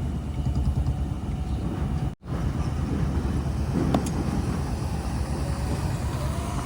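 Diesel engine of heavy earthmoving machinery running steadily, with a brief cut-out of all sound about two seconds in and a short knock near the middle.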